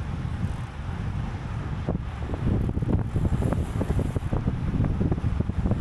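Wind buffeting the microphone of a camera riding along on a racing bicycle at speed: a steady low, fluttering rush with scattered faint ticks.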